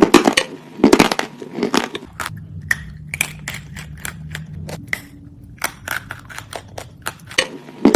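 Edible clay being bitten and chewed close to the microphone: a burst of loud, sharp crunches at the start, sparser crackles through the middle, and another burst of crunching near the end.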